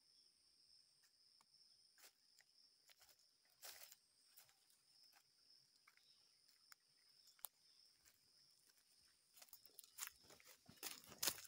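Faint footsteps crunching on dry fallen leaves along a dirt path, a scatter of crackles that grows busier and louder near the end, over a steady high-pitched insect chorus.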